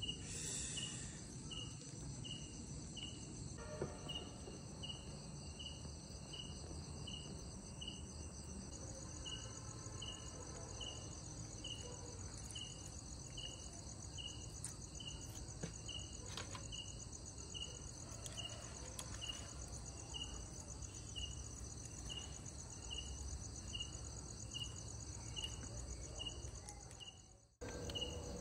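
Insects chirping: a steady high trill with a single sharp chirp repeating about once a second, over a low background rumble. It cuts out briefly near the end.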